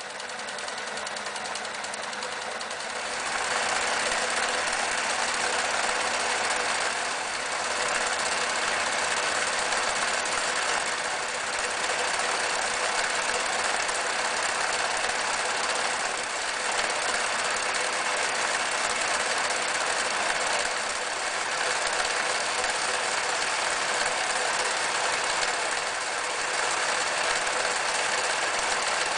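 Riccar 8600 electric sewing machine running continuously as it stitches. It gets louder about three seconds in, then runs steadily.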